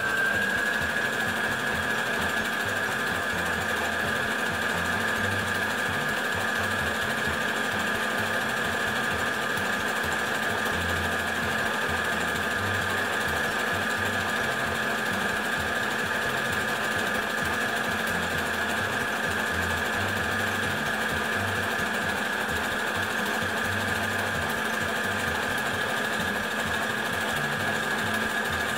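Brother household sewing machine running continuously at a steady speed, sewing an overcast stitch along the edge of plain cotton fabric, with a steady high whine.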